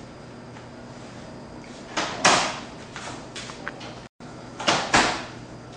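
Sterile gauze packs being torn open and handled at a prep table: short rustling, ripping noises, two about two seconds in, a few fainter ones after, and two more near the end. The sound cuts out briefly just past four seconds.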